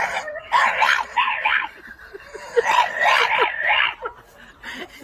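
French bulldog vocalising: two long, rough, wavering calls, each lasting more than a second.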